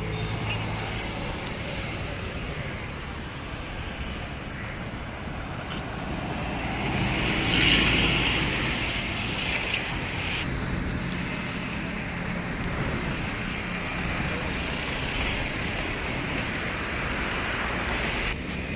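City road traffic running steadily, with one vehicle passing louder about eight seconds in.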